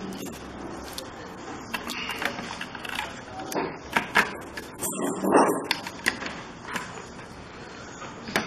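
Irregular clicks, taps and light knocks of a TV circuit board being handled and fitted onto the set's sheet-metal back chassis, with a louder, longer scrape about five seconds in.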